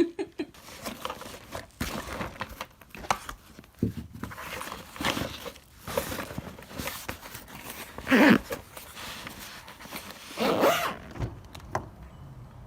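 Handling noises while unpacking a handheld car vacuum: irregular rustles, clicks and rasping strokes, with two louder rasps about eight and ten and a half seconds in.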